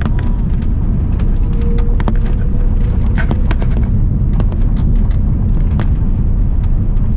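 Loud, steady low rumble inside an Airbus airliner's cabin, with many short rattles and knocks from the cabin fittings.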